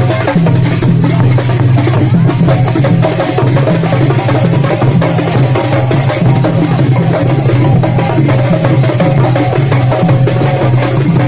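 Loud music driven by drums and other percussion, a dense, busy beat that runs on without a break.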